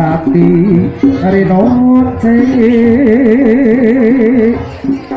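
Live accompaniment music for a kucingan trance dance: a loud melody steps through short notes, then holds one wavering note for about two seconds, over a steady run of percussion strokes.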